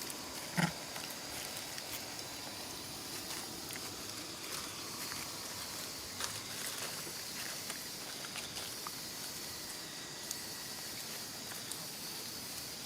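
Steady outdoor background hiss with a high insect-like drone, scattered faint rustles and ticks, and one short animal call about half a second in.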